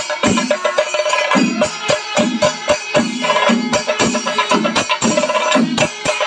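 Chenda melam: a group of Kerala chenda drums beaten with sticks in a dense, driving rhythm, with a bright ringing layer above the drumming.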